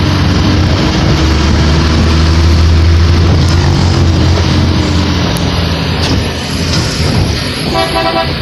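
Moving road vehicle: a steady low engine rumble over road noise, with a vehicle horn tooting briefly near the end.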